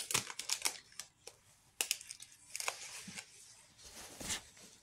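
Crunchy chewing of a Kind dark chocolate crunch bar: uneven crackly crunches in short bursts, the strongest about half a second, two and a half, and four seconds in.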